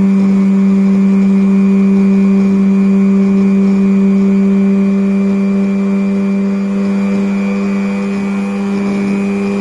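220 V sewing-machine universal motor, with a drill chuck on its shaft, running near top speed at about 10,000 to 11,000 RPM, its speed edging up: a loud, steady hum with a high whine above it.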